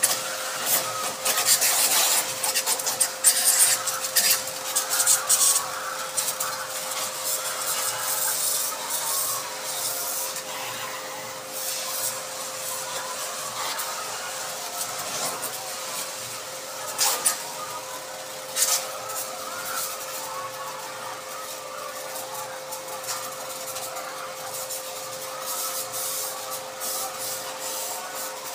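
Pressure pump sprayer washing a poultry farm: a steady motor hum under a hissing, rasping spray that comes in uneven bursts, heavier in the first ten seconds, with a couple of sharp knocks later on.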